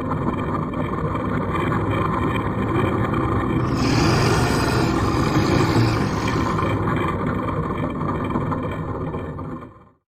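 A steady engine drone that swells louder about four seconds in, then cuts off abruptly near the end.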